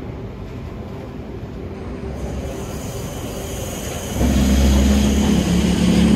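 Vintage Sydney single-deck electric train with camshaft-controlled traction motors pulling away from the platform: steady motor hum and whine, louder about two seconds in and sharply louder about four seconds in as the powered cars pass close by.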